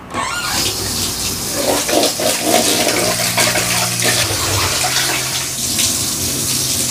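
Water running from a kitchen tap into a stainless-steel sink, splashing as a clear plastic container is rinsed under the stream. A low steady hum sits underneath.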